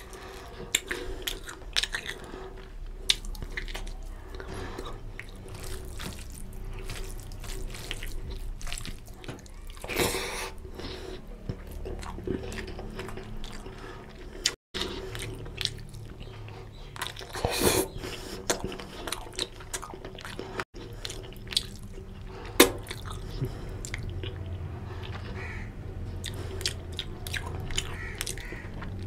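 Close-miked wet chewing and biting as a mouthful of chicken curry and rice is eaten by hand: many small, sharp mouth clicks and smacks over a faint steady hum, broken twice by split-second dropouts.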